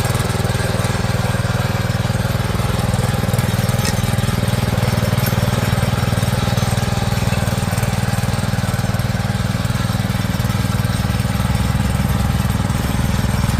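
Kaan 230 rotary tiller's 7 hp engine running steadily at an even speed.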